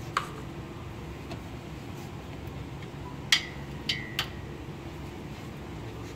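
Steady low room hum with four light taps or clicks, the loudest about halfway through; two of them leave a brief high ring.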